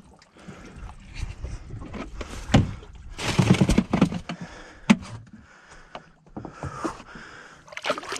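Irregular knocks and scraping from a fish being handled on a fiberglass boat deck, with two sharp knocks standing out and a noisy rush about three seconds in. Near the end comes water splashing as a hand dips into the sea.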